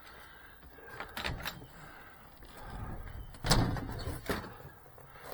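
A few knocks and clunks of objects being handled, the loudest a heavy thump about three and a half seconds in.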